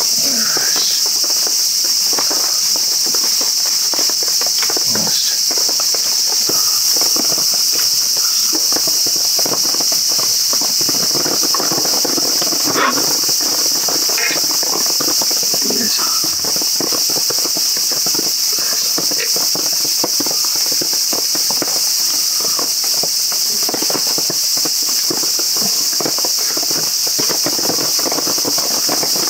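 Steady high-pitched chorus of insects, unbroken throughout, with a few faint small clicks and rustles of food handling at close range.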